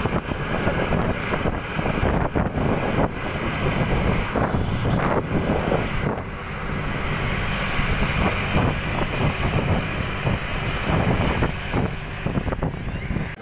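Wind buffeting the microphone at the open window of a moving bus, over the bus running along the road.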